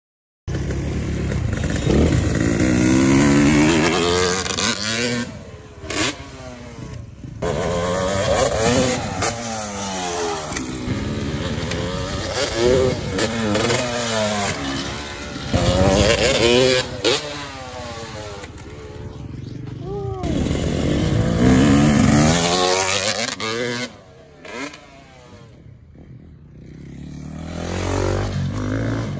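Motocross bike engines revving and accelerating, with several rising pulls one after another and drops in between as the throttle is rolled off. There is a quieter spell near the end before one more pull.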